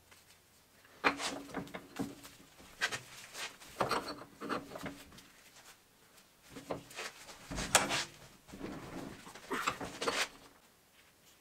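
Steel chain sprocket being handled in a bench vise: scattered metal knocks, clinks and scraping as it is set against the jaws, with the loudest knock about three-quarters of the way through.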